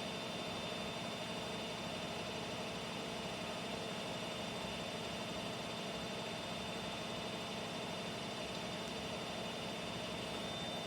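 Bosch washing machine running with a steady, even hum and a faint constant high whine.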